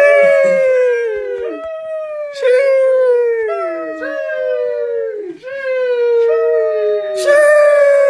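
The 'sheesh' meme sound effect on loop: a voice holding a long, drawn-out "sheeeesh" that slides down in pitch, some starting with a hissing "sh". Several copies overlap, with a new one starting about every second.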